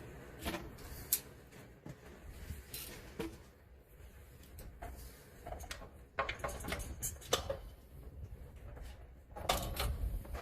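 Metal hand tools clinking and knocking as a wrench and socket are worked on engine mounting bolts, in scattered sharp clicks that come thicker about six seconds in and again near the end.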